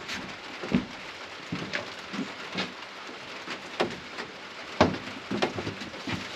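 Steady rain falling on a surface, with scattered short knocks and clicks; the sharpest knocks come under a second in and again near the five-second mark.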